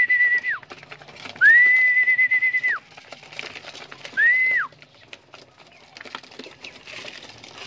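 A whistle blown three times in a steady, trilling tone, the last blast short, each dropping off at its end: a feeding call that brings pigeons to the feeder. Faint scattered clicks follow.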